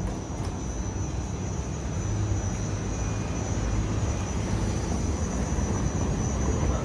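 Steady low engine rumble, swelling a little about two seconds in, with a thin steady high whine above it.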